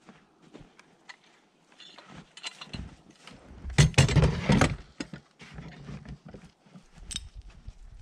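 Footsteps crunching in packed snow, then about four seconds in a heavy chainsaw with a capstan winch mounted on it is hoisted and set down on a plywood box with a thud and metallic clatter. Lighter knocks and rattles follow.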